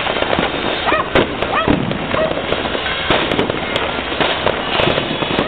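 Fireworks display going off: a rapid run of bangs and crackling pops with no pause, with people's voices now and then.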